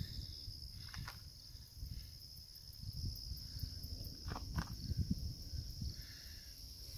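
Faint outdoor ambience: a steady high insect trill, with a low rumble of wind or handling on the microphone and a few soft clicks.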